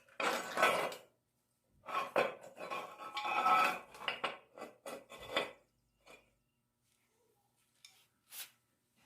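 Metal clattering and rattling in irregular bursts over the first five seconds or so, then a few faint clicks.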